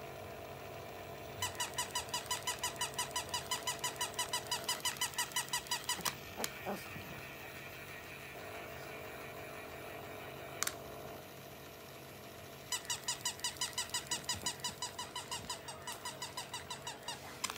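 Battery-operated plush toy dog giving rapid, regular squeaky electronic yips, about five a second. They come in two runs of several seconds with a pause between them, and a couple of single sharp clicks fall in the gap.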